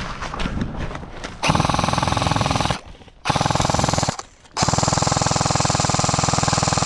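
S&T M249 airsoft electric gun (AEG) firing on full auto in three bursts. A short burst comes about a second and a half in, then a brief one, then a long burst of about three seconds.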